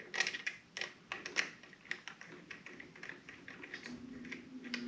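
Quick, irregular light clicks from a small hand tool turning the clamp screws on a motorcycle's handlebar brake-lever housing as they are snugged up. About four seconds in, an air conditioner kicks on with a steady low hum.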